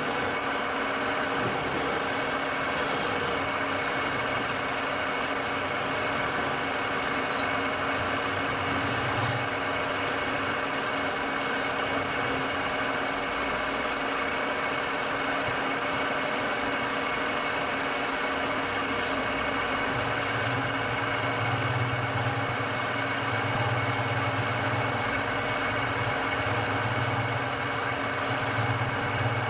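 Wood lathe running steadily: a motor hum with several steady tones over a continuous noise, the low hum growing stronger about two-thirds of the way through.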